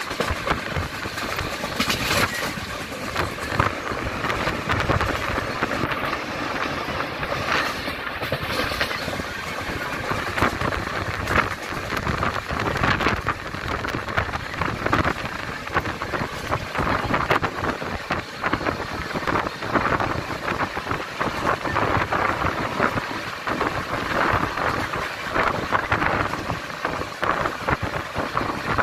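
Passenger train running at speed: a steady rumble of wheels on the rails with dense clatter and knocking from the carriage.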